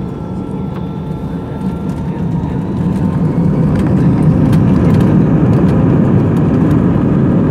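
Jet airliner's engines and rumble heard from inside the cabin, growing louder over the first few seconds as thrust builds for the takeoff roll, then holding steady. A faint high whine fades out after about two seconds.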